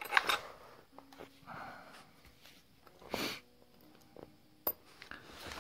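A person sniffing twice, once near the start and again about three seconds in, with a single light click near the end from small parts of a nail gun being handled.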